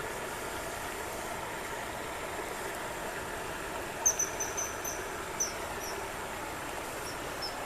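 A bird gives a quick run of about six short, high, sharp calls about four seconds in, then two more a moment later and two fainter ones near the end. A steady hiss of background noise runs underneath.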